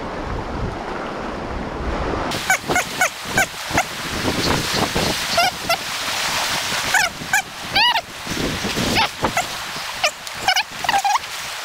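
Fast, high river current rushing, with wind on the microphone. From about two seconds in, an animal gives short, sharp calls again and again over the water, and these calls are the loudest sounds.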